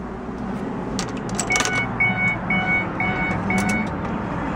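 Keys jingling and clicking as the key goes into the ignition of a 2007 Mercury Mariner, then the dashboard's door-ajar warning chime beeping steadily, about two beeps a second, with the driver's door open and the key in.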